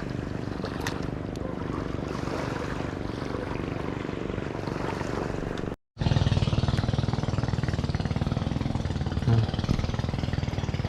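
A steady engine drone. It cuts out for a moment about six seconds in, then comes back louder.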